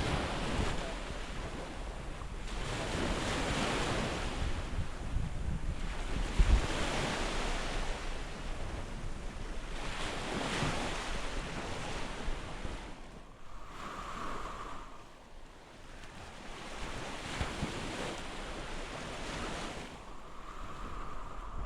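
Small waves washing onto a sandy beach in repeated surges every few seconds, with wind buffeting the microphone. A faint steady hum comes in twice in the second half.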